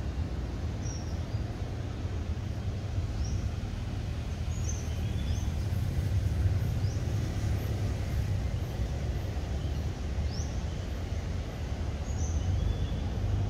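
Outdoor background with a steady low rumble, and short high bird chirps every second or two.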